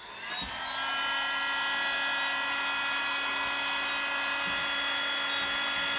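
Handheld heat gun switched on against car wiring: its blower motor spins up with a rising whine over about the first second, then runs at a steady high-pitched whine over a rush of air.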